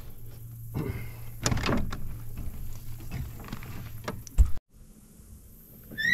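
Irregular knocks and clatter in a small fishing boat as a freshly caught crappie is handled, over a steady low hum. A loud single thump comes about four and a half seconds in, and the sound then cuts off abruptly.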